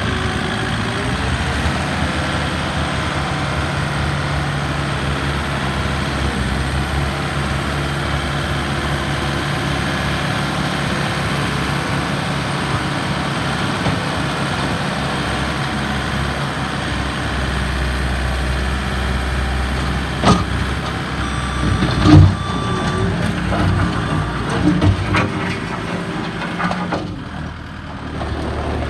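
Case SR220 skid steer loader's diesel engine running steadily. Several sharp knocks come in the last third, the loudest about three-quarters of the way through, and the engine sound drops briefly just before the end.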